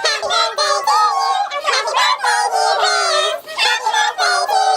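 Several children's high-pitched voices shrieking and cheering together, many overlapping squeals.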